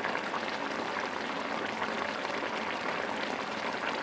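Hilsa fish and taro curry simmering in a frying pan, a steady bubbling hiss as the thickened sauce cooks down at the end of cooking.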